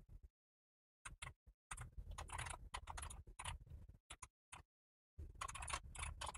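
Typing on a computer keyboard: rapid key clicks in bursts, with short pauses between them.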